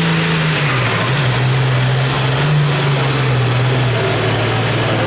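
Turbocharged diesel engine of a Limited Pro Stock pulling tractor running hard under full load as it drags the weight sled. Its pitch steps down a little about a second in and again near the end.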